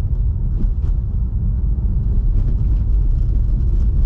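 Tesla Model 3 on all-season tyres driving over a snow-covered road: a steady low rumble of tyre and road noise.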